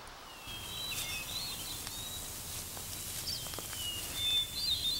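Forest ambience: a steady hiss with scattered high, thin chirping and warbling calls, more of them near the end, and a few faint ticks.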